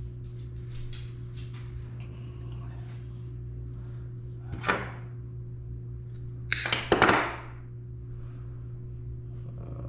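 Workbench handling noises over a steady low hum: a short scrape about halfway through, then a louder clatter about two seconds later, as hand tools and fuel-pump wiring parts are handled.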